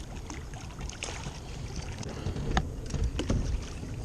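Water splashing and sharp knocks at a small fishing boat as a hooked bass is fought in close, with several strikes in the second half, over a steady low rumble.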